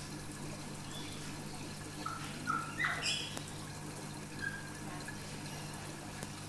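Steady low hum with faint water trickling from an aquarium filter. A few short, high chirps come about two to three seconds in.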